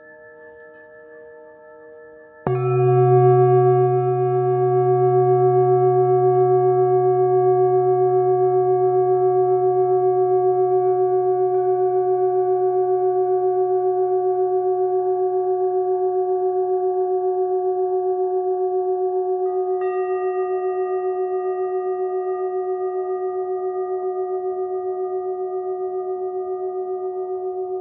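Singing bowl struck about two and a half seconds in, ringing on with a deep, wavering tone that fades slowly. A second, higher ring joins about twenty seconds in.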